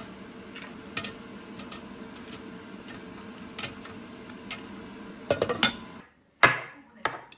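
Dumplings being set into a stainless steel collapsible steamer basket, with light metal clicks and knocks over a steady background hum. Near the end come two louder, ringing clinks of tableware.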